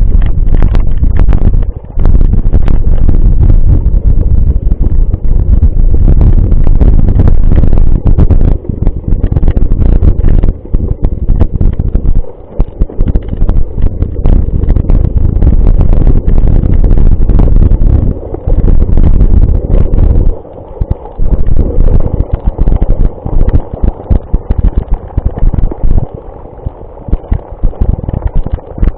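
Wind buffeting the microphone: a loud low rumble that comes and goes in gusts, with brief lulls.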